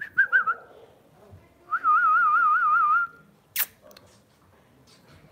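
A person whistling: two short whistled notes at the start, then a warbling whistle of about a second and a half with a quick, even wobble in pitch, followed by a single sharp click.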